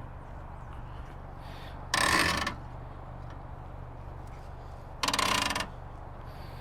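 Two short bursts of rapid ratcheting clicks, about three seconds apart: the ratcheting arms of a 1UP USA Quik Rack hitch bike rack being pushed down to clamp a bike's wheels.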